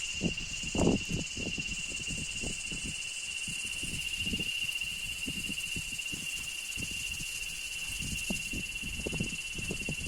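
Steady high-pitched insect drone, one unbroken tone, over irregular low knocks and thuds.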